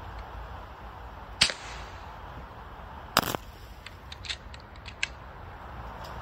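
PCP air rifle firing two shots at a block of ice, each a sharp crack, about a second and three-quarters apart; the second has a quick double smack. A few light clicks follow.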